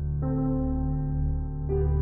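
Slow ambient background music: held chords over a steady low drone, with the chord changing about a quarter second in and again near the end.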